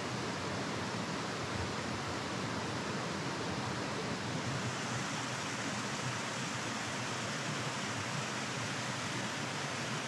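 Mountain stream rushing over small rocky cascades into a pool: a steady, even rush of water.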